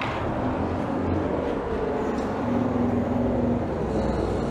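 Road traffic: a steady low engine hum with faint held tones.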